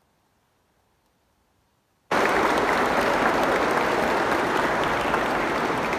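Near silence for about two seconds, then a congregation's applause starts suddenly at full loudness and goes on steadily.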